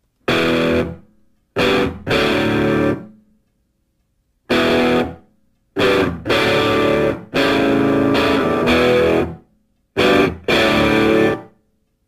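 Distorted electric guitar music: a series of short chords, each starting suddenly and dying away into silence before the next.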